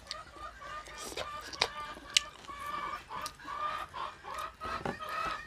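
A hen clucking in a run of short, repeated calls: the cackle of a hen laying an egg. A few sharp clicks among them, the loudest about two seconds in.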